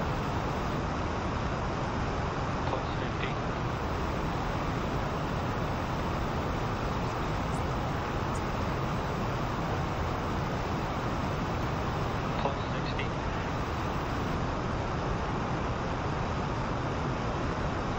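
NASA Space Launch System five-segment solid rocket booster firing in a static test: a steady, unbroken rushing noise spread from deep to high pitches, holding an even level throughout.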